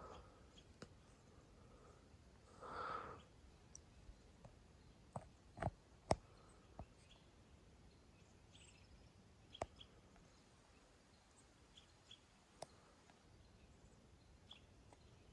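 Faint, quiet conifer-forest ambience with scattered small bird chirps, one short louder call about three seconds in, and a few isolated sharp taps.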